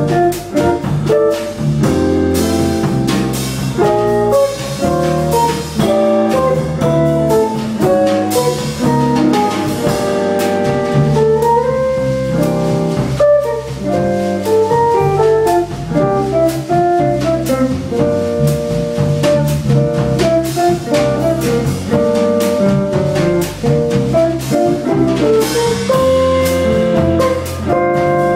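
Jazz trio playing a bossa nova arrangement: an archtop electric guitar plays moving single-note lines over electric bass and a drum kit with cymbals.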